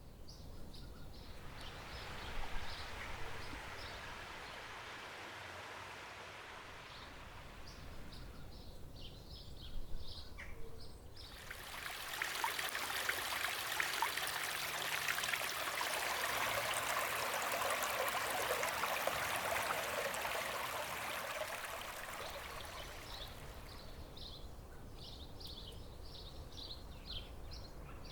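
Running water, a steady rushing hiss that turns louder and fuller about eleven seconds in and eases off again later, with birds chirping now and then.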